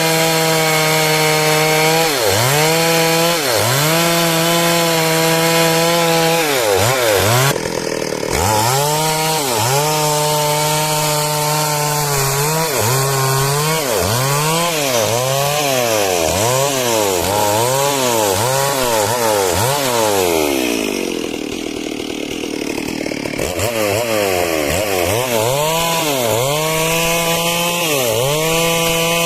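Stihl MS 382 two-stroke chainsaw cutting wood at high revs, its pitch dipping and recovering about once a second as the chain loads in the cut. About two-thirds of the way through it eases to a lower pitch for a couple of seconds, then revs back up and carries on cutting.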